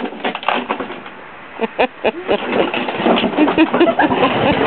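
A sled scraping and crunching as it is dragged over thin, patchy snow and frozen ground, with a toddler's voice making short sounds over it.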